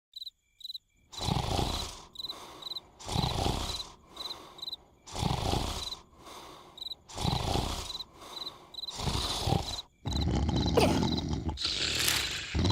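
Exaggerated cartoon snoring from a larva: a loud, rasping snore about every two seconds, five in a row, with crickets chirping between the snores. From about ten seconds in, a denser, continuous run of sound takes over.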